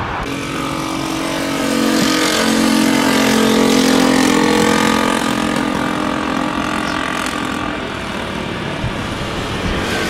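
Airbus A320-232's IAE V2500 jet engines on final approach, a steady whine with several humming tones over a broad rush, loudest a few seconds in, the tones fading out near the end.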